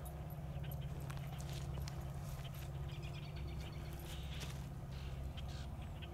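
Low, steady engine rumble with a fast pulsing to it, with faint scattered ticks and clicks over the top.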